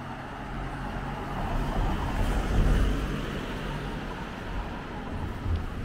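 A pickup truck drives past on the street. The engine and tyre noise grows louder, peaks a little under halfway through, then fades as it moves away.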